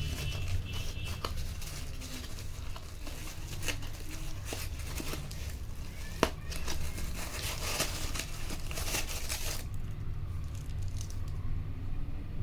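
Packaging being unwrapped: plastic or paper crinkling and tearing, with a sharp click about six seconds in. The rustling dies down about ten seconds in, leaving a steady low hum.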